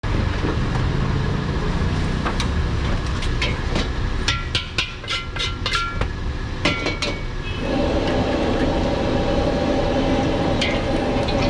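Gas wok burner running steadily, with a run of sharp metal clanks and knocks, each ringing briefly, as a steel ladle strikes and scrapes a carbon-steel wok. About eight seconds in, a louder steady rushing noise sets in as the wok sits back on the flame.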